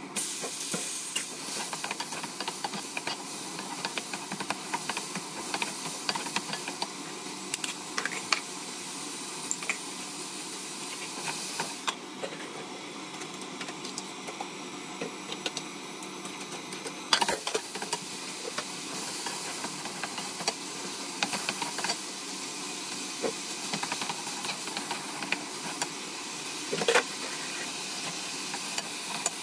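Oil sizzling steadily in a nonstick wok as garlic and then a red chili-tomato sauce fry, with many small crackles. Now and then a wooden spatula knocks against the pan, the sharpest knock a little past halfway.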